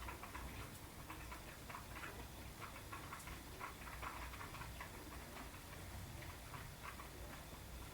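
Sparrows pecking seed from a plate: many quick, irregular taps of their beaks on the plate, several a second.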